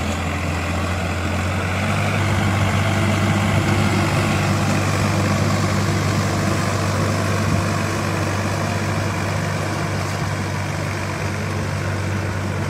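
Sonalika tractor's diesel engine running steadily while it works the soil in cultivation, a loud even hum that picks up slightly about two seconds in.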